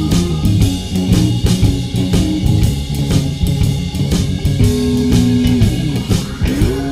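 Background rock-blues music: guitar over a steady drum beat, with a held guitar note bending up in pitch near the end.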